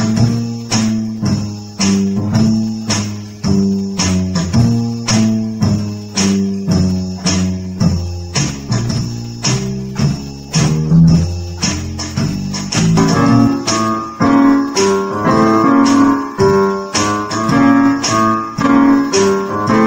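Digital keyboard played live: a low bass line moving note by note over a steady percussion beat, with higher melody notes joining about two-thirds of the way through.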